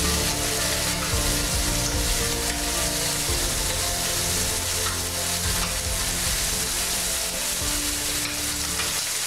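Peeled prawns sizzling in hot oil in a frying pan as they are turned over with tongs. They are golden-browned and done.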